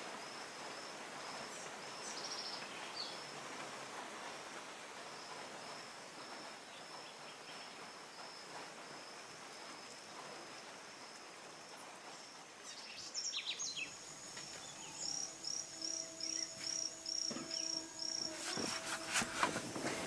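Tropical rainforest ambience: a steady high insect drone over a soft hiss of forest noise. About two-thirds of the way in, a bird starts a run of short, evenly repeated high chirps, about two a second, with a low steady hum underneath.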